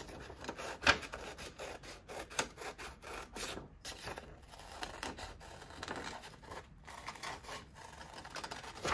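Paper being rubbed and scraped by hand on a work surface in irregular strokes, with a sharper click about a second in.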